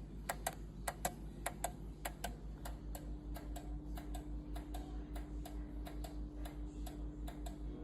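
A failed Kasa smart light switch clicking over and over at an uneven rate of a few clicks a second, over a low pulsing buzz. The switch has gone bad and does nothing.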